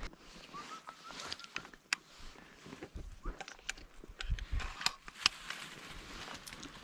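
Irregular crackles and snaps of dry brush and twigs underfoot, with a faint, short chirping tone about a second in.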